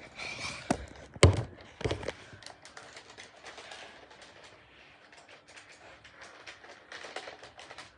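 Plastic clicks and rattles from the Nerf Regulator blaster being handled: a couple of sharper clacks, then a run of small quick clicks.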